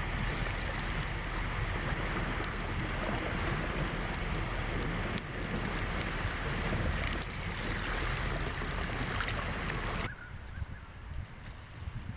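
Boat underway: steady wind on the microphone and water rushing and splashing against the hull, with scattered sharp slaps. About ten seconds in it cuts off abruptly to a much quieter outdoor background.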